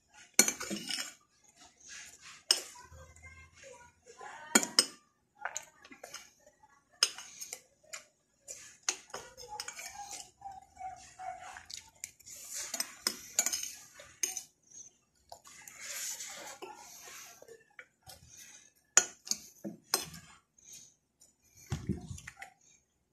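Metal spoon clinking and scraping against a ceramic bowl in irregular taps as someone eats from it.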